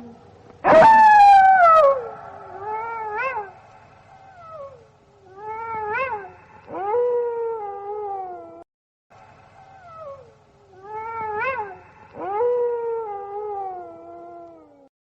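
Gray wolves howling: a loud howl about a second in that slides down in pitch, then shorter howls that rise and fall, and more long falling howls.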